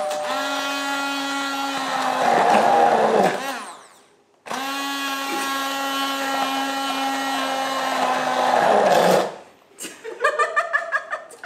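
Hand-held immersion blender puréeing mint leaves in sugar water, a steady motor whir. It winds down and stops about three to four seconds in, starts again abruptly about half a second later and runs until about nine seconds, followed by a few short uneven sounds near the end.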